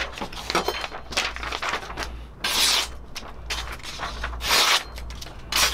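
A sheet of paper being sliced through with a sharp, slender Tojiro kitchen knife: several short papery swishes, one per cut, the sign of a keen edge that cuts paper cleanly.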